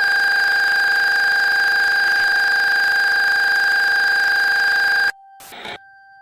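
Loud, steady high-pitched electronic tone over static hiss on the soundtrack of a VHS-style analog-horror tape, cutting off suddenly about five seconds in. A brief crackle of noise and a faint steady hum follow.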